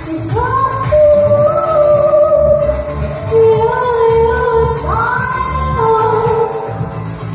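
A young girl singing into a microphone, holding long notes and sliding between them, over backing music with a steady beat.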